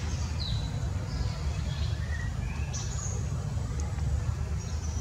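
Birds giving short, high chirps, several scattered through a few seconds, one of them a quick falling note, over a steady low rumble.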